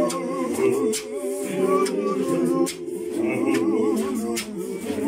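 A men's church choir singing a cappella in close harmony, with sharp percussive hits falling in a loose beat over the voices.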